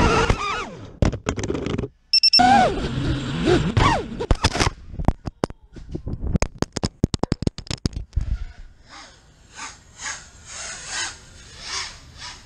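FPV racing drone's electric motors and propellers whining and shifting in pitch as it dives, then a rapid run of sharp clacks and scrapes as the drone crashes and tumbles. The last few seconds hold only faint, soft pulses of noise.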